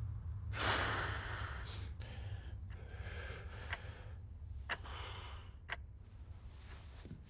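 A person's heavy sigh, followed by softer breaths and three faint clicks about a second apart, over a steady low hum.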